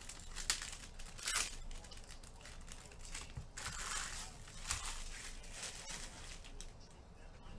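Plastic trading-card pack wrapping crinkling in a series of short rustles and crackles as the packs and cards are handled.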